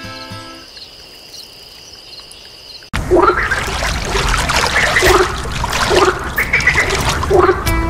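Frogs calling in a chorus. It starts suddenly about three seconds in, with a low croak about once a second over a dense background of calls. Before that, background music fades out into a quiet stretch.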